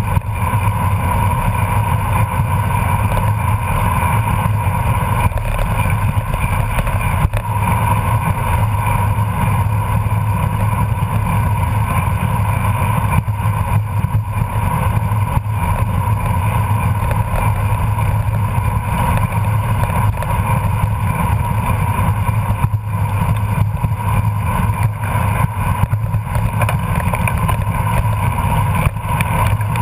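Steady wind rush and road noise from a road bicycle riding at about 24 mph on asphalt, heard through a bike-mounted camera's microphone, with a constant low rumble.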